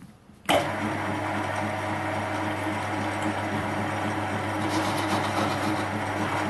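Metal lathe switched on about half a second in, then running steadily with a constant low hum.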